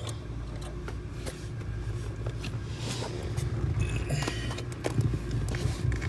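Scattered small metallic clicks and rustling from hands working a clutch pedal spring into place under the dashboard, over a steady low hum.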